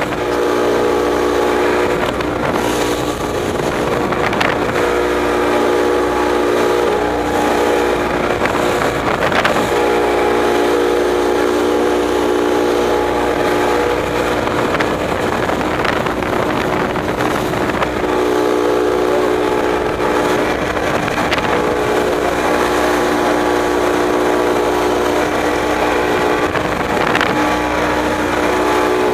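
Boat engine running steadily underway, a constant droning tone over the rush of wind and water. The drone dips for a few seconds about halfway through, then comes back.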